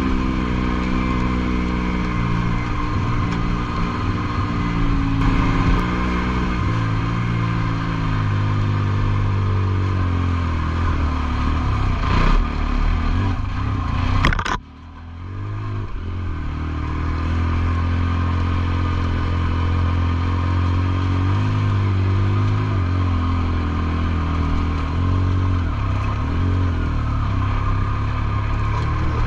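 Yamaha YXZ 1000R side-by-side's three-cylinder engine running steadily on a dirt trail, its pitch shifting up and down. Around the middle there are a couple of knocks, then a sudden brief dip in the sound before the engine comes back up.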